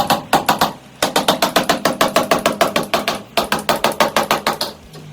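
Rapid knocking, about seven hollow-sounding blows a second in three runs, as a sandwich panel is hammered down into the top of a PVC window frame.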